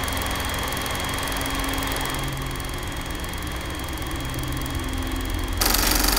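Vintage reel-to-reel film projector running with a steady mechanical whirr and rattle. Near the end it suddenly gets louder and brighter.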